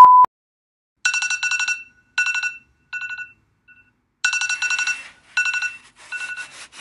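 Phone alarm ringtone playing: groups of quick, bright electronic notes that repeat with short pauses between them. A steady test-tone beep cuts off at the very start, and near the end there is a short rattle as the vertical blinds are drawn open.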